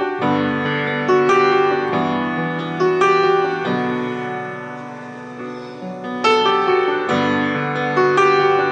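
Piano music: notes and chords struck about once a second, each left to ring and fade, quieter for a few seconds in the middle.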